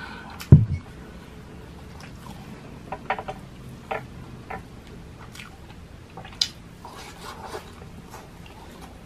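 Close-miked eating by hand: a dull thump about half a second in, then scattered small clicks and wet squishes as fingers pick food from a small dipping bowl and a plate of garlic fried rice.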